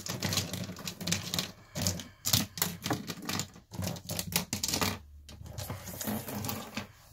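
Plastic Sharpie markers clicking and clattering against one another and the wooden tabletop as they are sorted and lined up by hand: an irregular run of light clicks, with a short lull about five seconds in.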